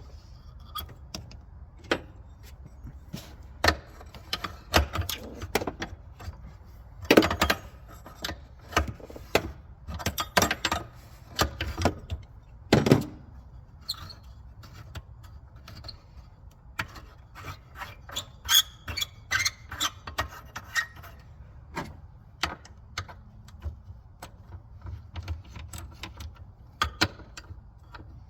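Irregular clicks, knocks and scrapes of hand tools on metal as work begins on removing the EGR valve from a 2001 Ford Escape engine. The loudest knocks come about 7 and 13 seconds in.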